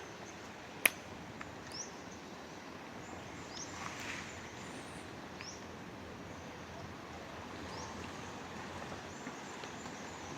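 Outdoor garden ambience with a soft steady wind hiss, a few short rising bird chirps, and a sharp click about a second in. Light crunches of footsteps on dry leaves come around four seconds in.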